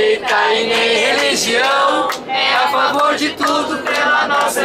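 A group of people singing together in chorus, loud and continuous.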